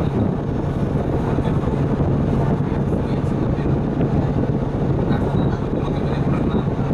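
City bus engine idling while the bus stands at a stop, heard from inside the cabin: a steady low hum with an even rumble.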